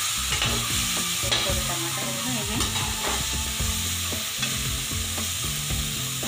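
Tomatoes sizzling in hot oil in a metal kadai, with a steady frying hiss, while a metal spatula stirs and scrapes them against the pan every so often. The tomatoes have cooked down soft.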